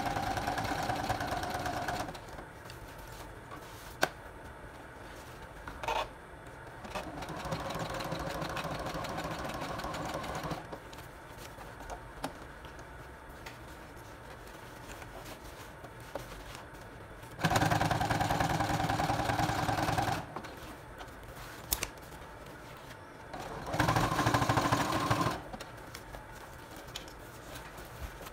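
Brother Project Runway sewing machine stitching through patches on a leather vest in four short runs of one to three seconds each, with quiet pauses between them. A few sharp clicks fall in the pauses.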